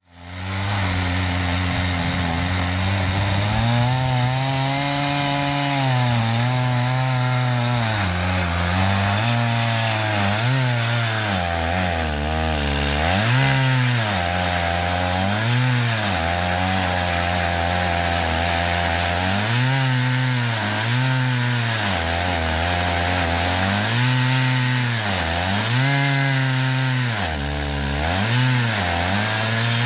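Stihl MS880 two-stroke chainsaw on a chainsaw mill ripping a slab from a wide willow log. The engine runs continuously, its pitch repeatedly dropping and rising again as the cut loads it.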